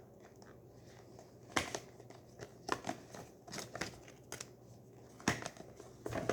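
Plastic wrap and packaging of a boxed speed cube being handled and pulled open by hand: scattered crinkles and small clicks, with a sharper snap about one and a half seconds in and another just past five seconds.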